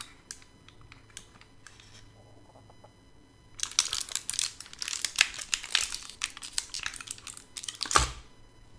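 Plastic blister pack of e-cigarette cartomizers being pried open by hand: a few small clicks, then several seconds of dense crinkling and crackling of the plastic. A single dull thump near the end.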